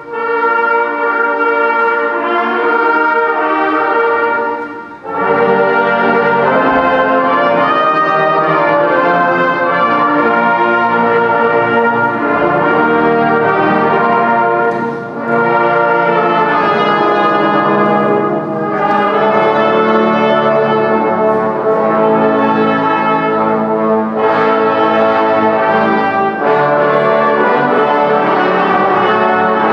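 Town wind band playing, brass prominent, in full sustained chords, with a short break about five seconds in before the band comes back in fuller in the low register.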